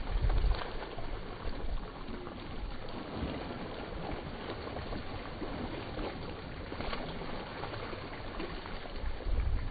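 Water splashing from a swimmer's front-crawl arm strokes and kicks, irregular short splashes over a steady wash. Low gusts of wind on the microphone at the start and again near the end.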